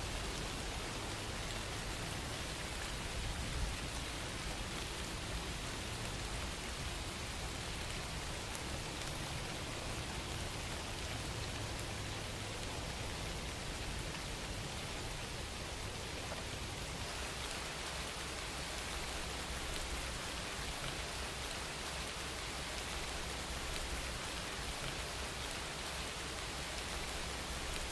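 Steady rain falling, an even rushing hiss with no breaks.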